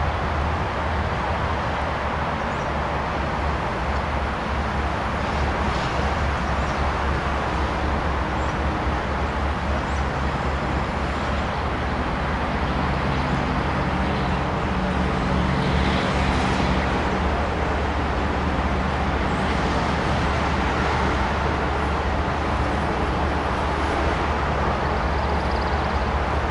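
CSX freight train's diesel locomotives running as they approach slowly: a steady low engine drone over a broad rumble, growing slightly louder.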